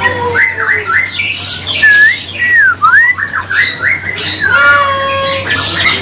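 Caged songbirds calling at once: many short rising and falling whistles and chirps mixed with harsh, noisy chatter.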